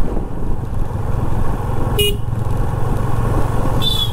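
Yamaha FZ25 motorcycle's single-cylinder engine running steadily at road speed, with wind noise. A short horn toot sounds about two seconds in, and another brief high sound comes near the end.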